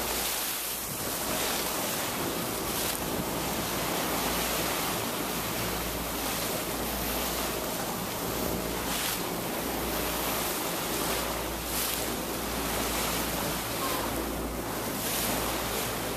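Steady rush of wind and water heard from the deck of a moving boat, with wind buffeting the microphone in brief gusts every few seconds over a low rumble.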